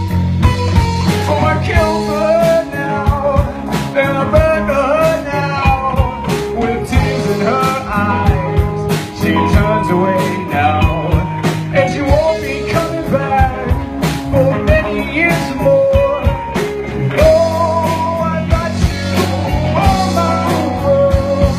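Rock band playing an instrumental passage in a bluesy, psychedelic rock style: steady drums and bass under a bending, wavering lead melody line.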